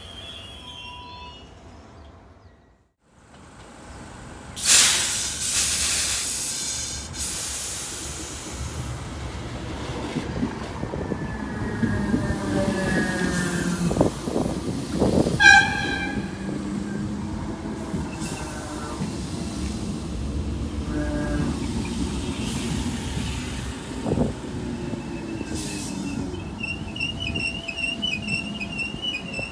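DART electric multiple unit running along the platform: steady rolling and motor noise with a falling whine, wheel squeal, and a brief horn toot about halfway through.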